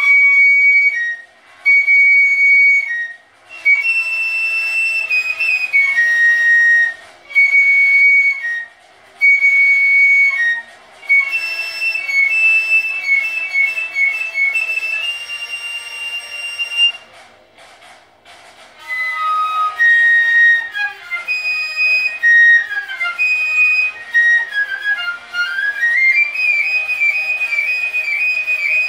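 Piccolo playing a melody: short phrases of high notes with brief breaks between them, then from about 19 seconds in a quicker passage with a falling and rising run, ending on a long held high note.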